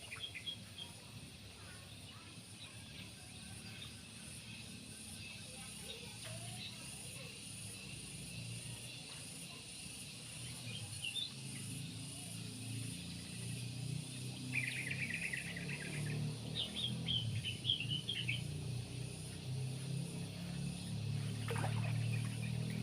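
Outdoor ambience: a steady, fast-pulsing high insect drone, with birds chirping in short runs a little past the middle, over a low rumble that grows louder toward the end.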